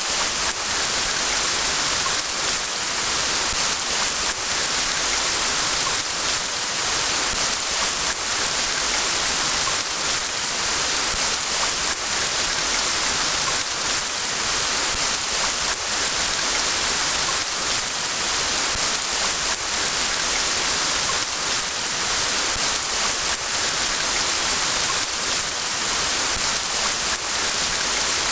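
Steady rain falling: an even hiss with a faint patter of single drops.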